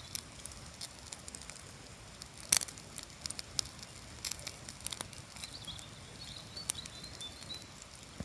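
Lamb chops sizzling in a pan: a faint steady hiss with scattered pops and crackles of spitting fat, the sharpest about two and a half seconds in.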